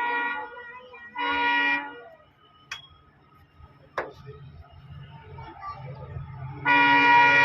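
Indian Railways locomotive horn: a blast dies away at the start, a short toot follows a second later, then after a few seconds of low train rumble a long loud blast begins near the end.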